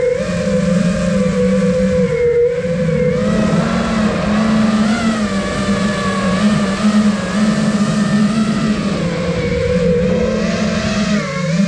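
Brushless motors and propellers of a 5-inch FPV freestyle quadcopter (iFlight Nazgul Evoque) whining in flight, the pitch rising and falling constantly as the throttle changes, with brief drops in pitch about two and a half seconds in and again about ten seconds in.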